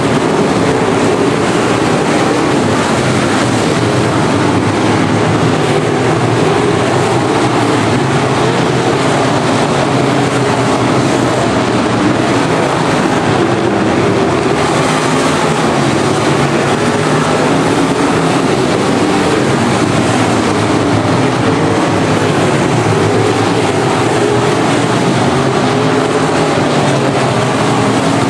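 A pack of IMCA Modified dirt-track race cars racing around the oval, the V8 engines of several cars running together in one loud, steady mix of engine noise.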